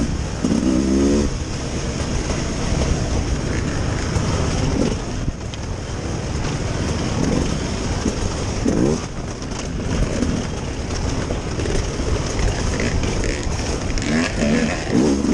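A 2021 Beta 300RR Race Edition's two-stroke dirt bike engine running under riding, its pitch rising and falling with the throttle in short revs near the start, about halfway through, and again near the end, over a steady low rumble.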